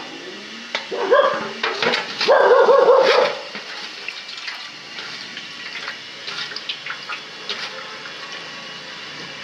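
Oil sloshing and splashing in an aluminium basin, with light clinks as a diesel cylinder head is handled in it, while its valve seal is tested with poured oil. Two loud pitched animal-like calls stand out, about one second and two and a half seconds in.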